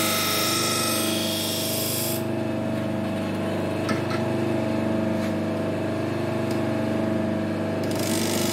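Half-speed bench buffer motor running steadily while a knife edge is drawn across a slotted paper wheel loaded with diamond and chromium oxide paste, giving a hissing rub in the first two seconds. The rub stops as the blade is turned over, with a couple of light clicks about four seconds in, and starts again near the end as the other side of the edge goes onto the wheel.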